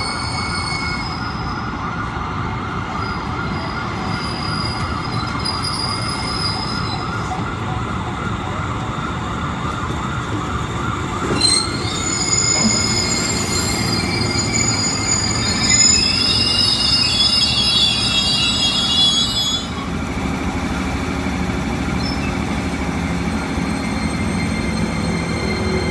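Ex-JR 205 series electric commuter train running along the platform, with a steady rumble of wheels and motors. A brief knock comes about halfway through, then high-pitched, wavering wheel squeal that rises in pitch for several seconds before cutting off abruptly.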